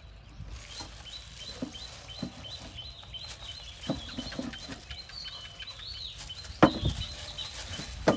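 Raw fish paste slapped into a stainless steel bowl by gloved hands as it is beaten to make it sticky, giving a few dull thuds, the loudest about two-thirds of the way in. Birds chirp over and over in the background.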